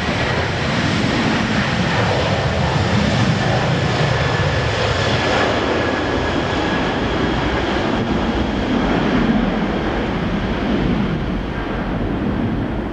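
Jet airliner's engines running loud and steady during a takeoff, with a thin fan whine that drifts slightly lower.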